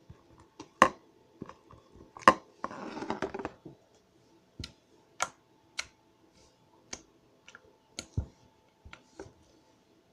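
Homemade glue-based slime being squeezed and pressed by hand, giving a string of sharp pops and clicks, with a longer squelch about three seconds in.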